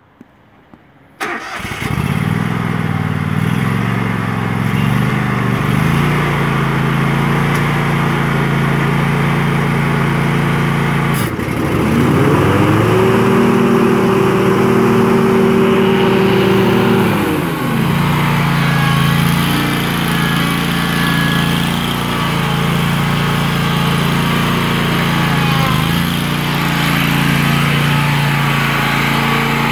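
Engine of a 2015 Scag Tiger Cat 52-inch zero-turn mower starting about a second in, then running steadily. About eleven seconds in the revs rise smoothly to a higher speed, hold there for about five seconds, and drop back down.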